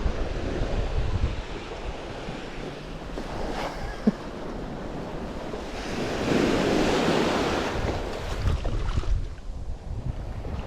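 Surf washing onto a beach with wind buffeting the microphone, the wash swelling about six seconds in. A single short tap about four seconds in.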